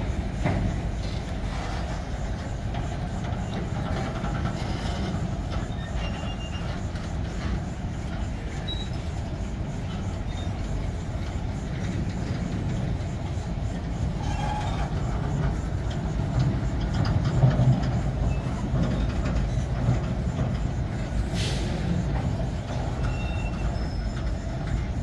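Empty bauxite ore wagons rolling past on steel rails: a steady low rumble with wheel clatter and a few short high wheel squeals. A single sharp clank near the end.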